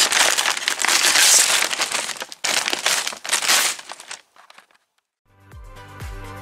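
Masking paper and tape being pulled off a car body and balled up: a loud crinkling, tearing rustle that dies away about four seconds in. Electronic music with a deep bass starts near the end.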